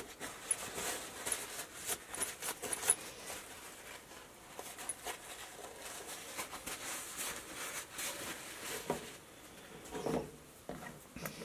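Paper towel rustling and rubbing as excess thread sealant is wiped off a freshly threaded fitting, with a few light handling knocks near the end.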